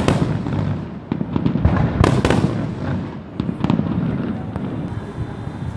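Aerial fireworks shells bursting: a string of sharp bangs at irregular intervals, each followed by a rolling echo, thinning out over the last second or so.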